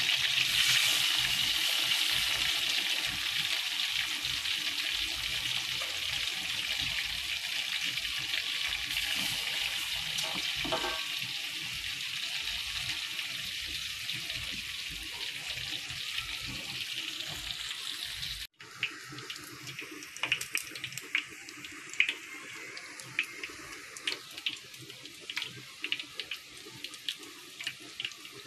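Chicken heads and pork pieces deep-frying in hot oil: a loud, steady sizzle. About two-thirds through it breaks off suddenly and comes back quieter, with scattered sharp pops and crackles as the pieces brown.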